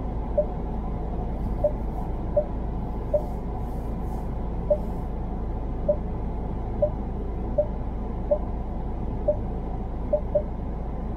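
Car engine running, heard inside the cabin as a steady low rumble, with short sharp ticks about once a second at uneven spacing.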